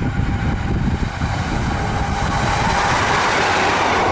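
British Rail Class 153 single-car diesel multiple unit passing close by, its underfloor Cummins diesel engine and wheels on the rails. The noise grows to its loudest about three seconds in as the unit draws level.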